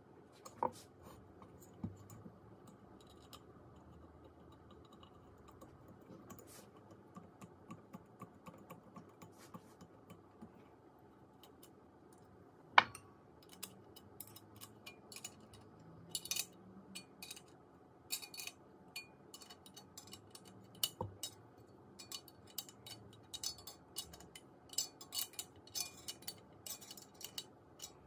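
Small metal parts of an old brass-and-steel blow torch clicking, tapping and scraping as they are handled and fitted together. One sharp click stands out near the middle, and the clicks come thick and fast in the second half.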